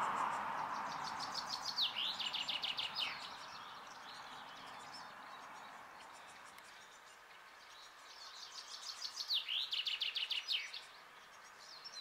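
A songbird singing two song phrases about eight seconds apart, each a quick run of high repeated notes ending in a downward sweep. A rushing noise at the start fades away over the first few seconds.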